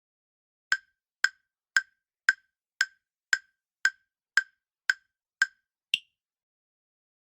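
Countdown timer sound effect: ten evenly spaced wood-block-like ticks, about two a second, ending in one higher-pitched tick.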